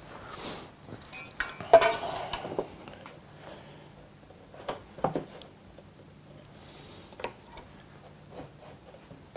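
Hand tools and wood being handled on a workbench: scattered clinks of metal and light knocks, busiest about two seconds in, then single knocks around the middle.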